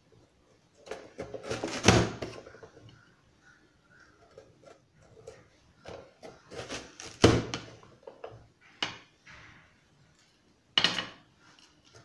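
Plastic press-down vegetable chopper dicing yellow bell pepper: the lid is slammed down to force the pieces through the blade grid. There are three loud clacks, about two, seven and eleven seconds in, with lighter clicks and rattles between them.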